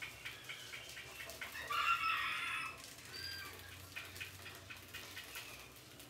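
Rats scrabbling over a wire-mesh cage trap and wooden ladders, a run of small clicks and scratches, with one loud animal call lasting about a second near two seconds in.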